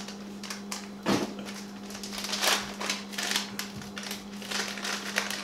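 Plastic spice packet of curry powder crinkling and crackling irregularly as it is handled and opened, with a sharper knock about a second in. A steady low hum runs underneath.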